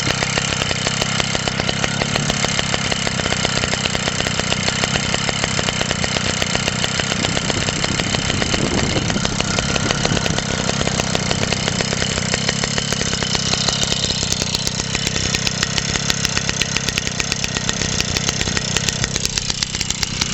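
JAP Model 80 80cc single-cylinder stationary engine running steadily with a fast, even beat of firing strokes. It has just been started and sounds really nice, its block now fitted the right way round.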